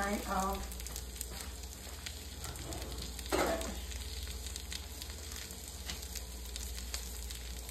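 Spam slices and sliced white onions sizzling steadily in a skillet on the stove.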